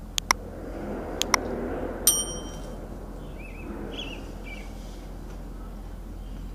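Two quick mouse-click pairs about a second apart, then a short bright bell ding: the sound effects of a subscribe-button animation. Faint high bird chirps follow, over a steady background hiss.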